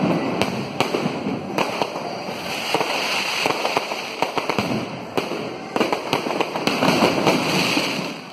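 Aerial fireworks bursting overhead in a dense, continuous barrage of crackles and pops, dying down near the end.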